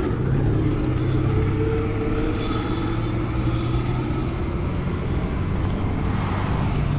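Motor vehicle engine running steadily with road noise, a low hum and a slightly wavering tone.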